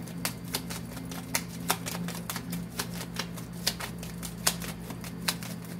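Light, sharp clicks, about three a second and slightly uneven, over a steady low hum.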